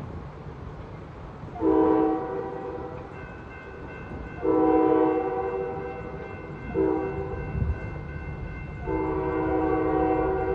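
Locomotive air horn on a Finger Lakes Railway freight train sounding the grade-crossing signal: long, long, short, long, each blast a chord of several chime notes. The train's low rumble runs underneath.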